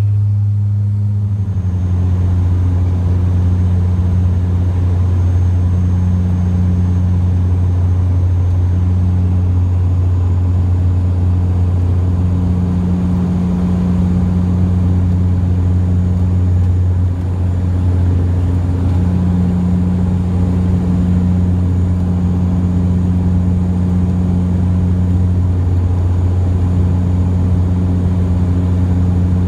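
Inside the cabin of a Porter Airlines Dash 8-400 turboprop: a loud, steady low drone from the propellers and engines, with a faint high whine above it. The drone's pitch shifts slightly about a second and a half in, then holds steady.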